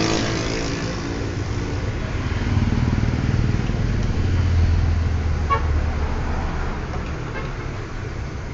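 Industrial sewing machine's motor running with a steady low hum, a little louder in the middle. A faint short high sound comes about five and a half seconds in.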